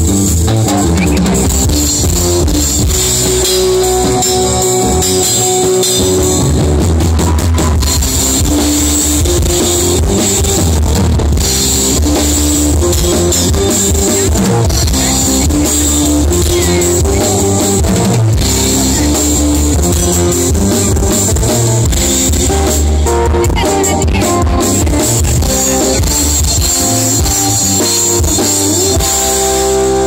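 Live band music, loud and steady: a drum kit keeping the beat under bass guitar and guitar.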